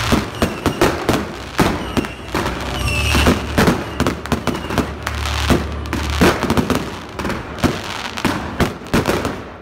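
Aerial fireworks going off in rapid succession, with shells bursting and comets firing in a dense run of sharp bangs, several a second, and crackle between them.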